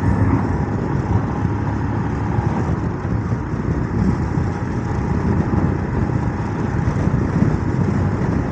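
Steady wind rush and buffeting on a moving motorcycle at about 50 mph, with the Royal Enfield Himalayan 411's single-cylinder engine running at a steady cruise underneath.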